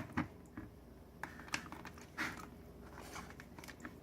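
A few scattered light clicks and taps of small hard objects being handled, the loudest near the start and a short run about a second and a half to two seconds in.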